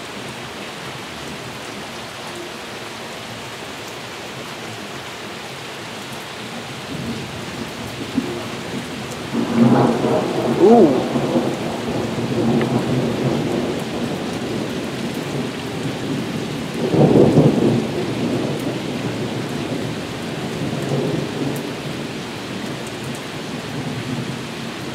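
Thunderstorm: steady heavy rain hissing on the patio and lake, with rolls of thunder swelling up about ten seconds in and again, briefly, around seventeen seconds.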